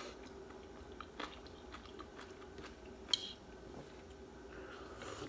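Faint chewing of soup noodles, with a few soft clicks and one sharper clink about three seconds in, over a steady faint hum.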